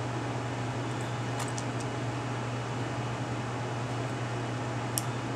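Steady fan-like hum and hiss of a running machine, with a low hum under it, and a few faint ticks, the sharpest about five seconds in.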